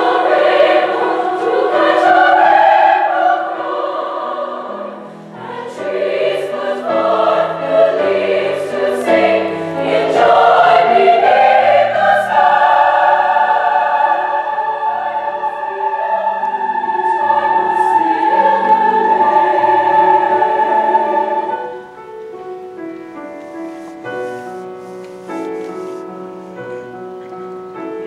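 Large high school mixed choir singing sustained chords in many parts. It is full and loud for most of the passage, then drops to a soft passage about three-quarters of the way through.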